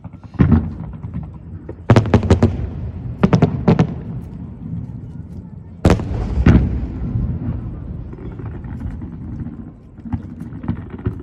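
Aerial firework shells bursting: sharp booms in clusters, the loudest about six seconds in, each trailing a long low rumble.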